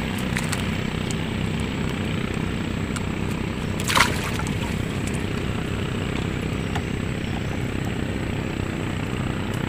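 A small motor drones steadily and evenly. A sharp knock comes about four seconds in, when a small caught fish drops into the wooden boat's hold.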